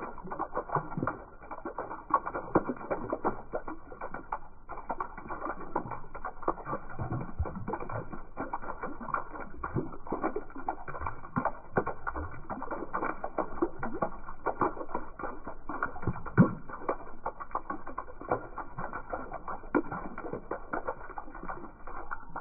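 Rain falling into a shallow puddle of standing water: a steady, dense, irregular patter of drops plopping and splashing on the surface.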